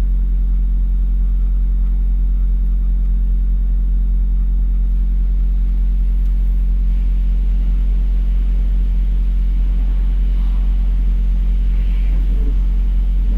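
Semi truck's diesel engine idling steadily: an even, deep hum with no change in speed.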